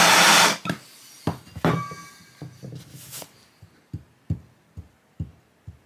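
Brief loud hiss of a handheld gas blowtorch, cutting off about half a second in, followed by about a dozen light, separate knocks and taps as a flat steel bar is handled on a wooden block.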